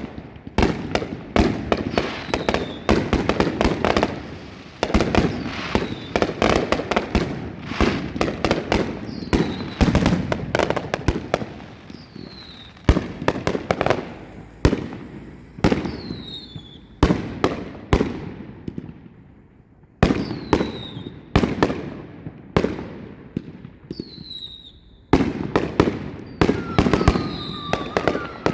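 Fireworks going off in rapid volleys of sharp bangs, many close together, with short falling whistles among them and brief lulls between bursts.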